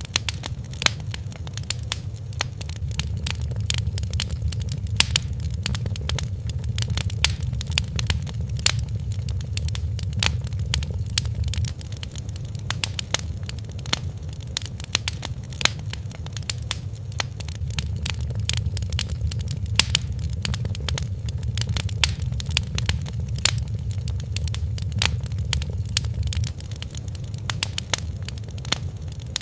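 Fireplace fire crackling: frequent sharp pops and snaps over a steady low rumble.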